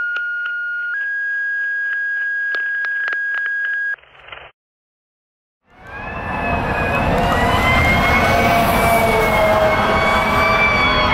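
Two steady alert tones in a row, a short lower tone then a longer higher one with a few clicks, in the pattern of a fire dispatch tone-out. After a short gap, a fire engine's siren fades in over the rumble of its engine, winding slowly in pitch as the truck approaches.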